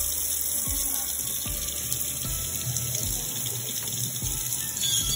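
Kitchen faucet running a steady stream into a stainless steel sink, with hands rinsing small shellfish under the water to wash sand off.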